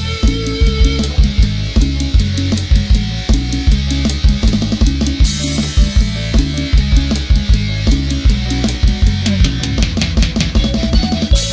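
Instrumental karaoke backing track in Thai sam cha style: drum kit and bass keep a steady beat, with a rapid drum fill near the end.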